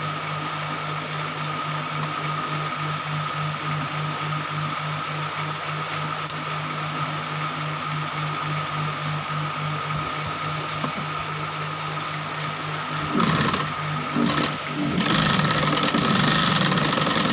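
8500B-model industrial lockstitch sewing machine running steadily with a motor whine, its timing freshly reset. About 13 seconds in the sound grows louder and rougher as it begins stitching through cloth.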